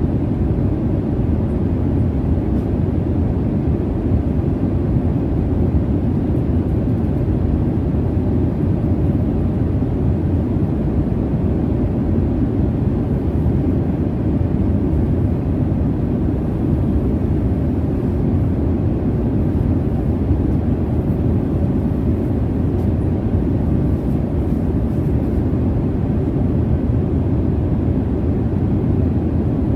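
Jet airliner cabin noise in flight: a steady, deep, even rumble with most of its weight in the low range, unchanging throughout.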